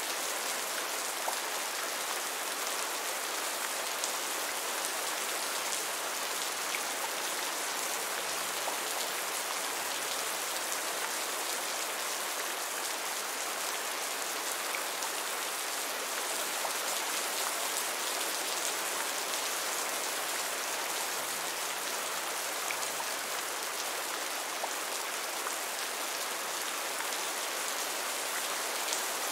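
Steady heavy rain: a dense, even hiss of falling rain, with scattered sharper drop hits.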